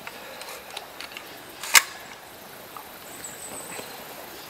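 A scoped hunting rifle being handled and set aside in a tree stand: a few faint clicks, then one sharp click just under two seconds in.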